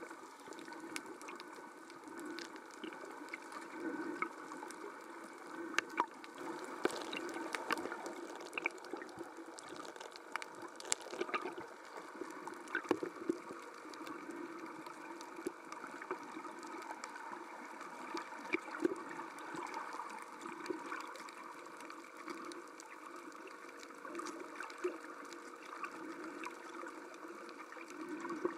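Muffled underwater ambience on a coral reef: a steady watery hiss that swells and fades, scattered with sharp clicks and crackles.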